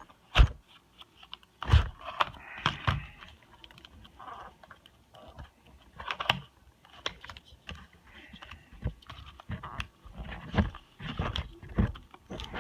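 Plastic packaging being cut and pried open with a Gerber Shortcut knife blade: irregular sharp clicks, cracks and crinkling of the plastic, with two louder knocks near the start.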